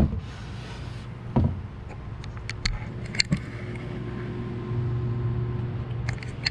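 A PVC port tube being handled inside an MDF subwoofer enclosure: a couple of dull knocks, then a few light clicks and taps, over a steady low hum.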